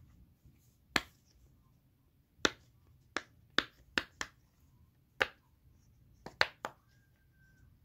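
Sun-shaped fidget toy being worked by hand, giving about ten sharp clicks at uneven intervals, with a quick cluster of three a little over six seconds in.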